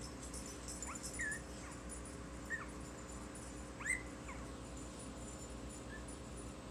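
Young Bugg puppies (Boston terrier–pug crosses) giving a few short, high squeaks and whimpers as they shift in their sleep, the loudest about four seconds in.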